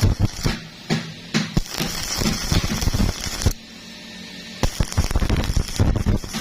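Stick-welding arc crackling and sputtering. It stops for about a second past the middle, then crackles again.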